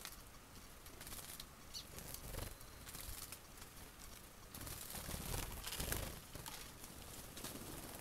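Outdoor ambience of irregular rustling and gusts of noise, swelling strongest about five to six seconds in.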